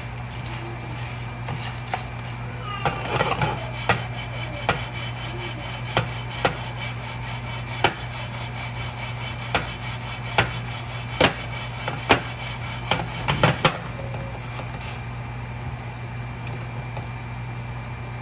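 A wooden spoon stirring pumpkin seeds in a metal frying pan: irregular sharp knocks and scrapes of the spoon against the pan as the seeds shift, stopping about three-quarters of the way through. A steady low hum runs underneath.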